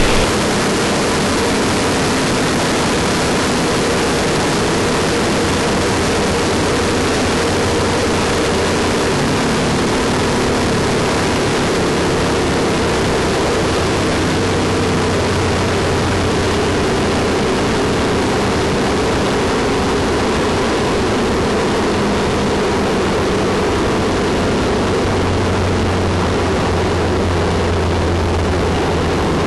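Twin-turbocharged 515 ci big-block Merlin V8 in a 1953 Studebaker land-speed car running at high speed, heard from inside the car as a steady, loud rush of wind and engine noise with no change in pitch.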